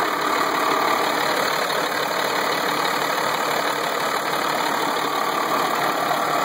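Cummins 5.9L inline-six diesel (6BT) idling steadily and running smooth, still warming up just after a cold start.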